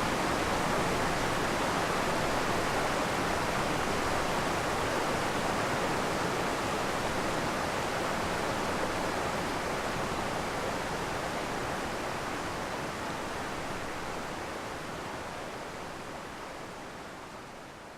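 Creek waterfall rushing in a steady, even roar of water, fading out gradually over the second half.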